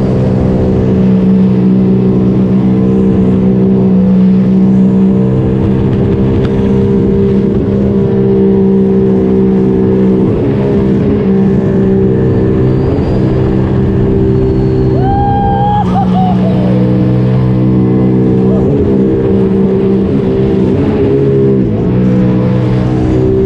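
2021 Spark Evo personal watercraft running hard on the water: a steady, loud engine drone with rushing spray. The engine note dips and wavers several times in the second half, as the throttle and load change.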